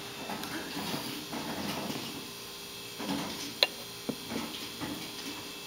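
Quiet handling noise as steamed milk is poured from a stainless steel milk pitcher into a cappuccino cup, with one sharp click a little past halfway and a softer one just after.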